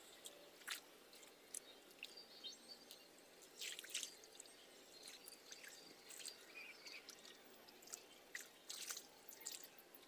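Faint, irregular little splashes and drips of water as hands grope through a shallow, muddy pool feeling for fish, with clusters of sloshing about four seconds in and again near the end.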